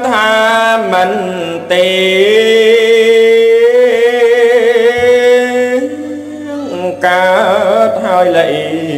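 Khmer smot: a monk's solo voice chanting a slow, melismatic Buddhist verse in long held notes with wavering ornaments and pitch glides, with two short breaks.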